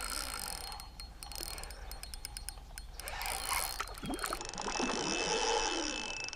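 Fishing reel clicking in rapid ticks while a hooked carp is played on light line, with a rougher, noisier sound building in the second half.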